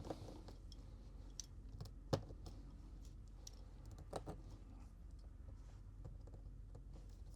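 Faint, scattered clicks and light taps of small repair tools and phone parts being handled on the workbench, with a sharper click about two seconds in and a few more around four seconds.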